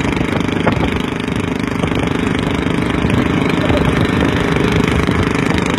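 Small petrol engine bolted to a pedal bicycle, running steadily as the bicycle rolls along the road.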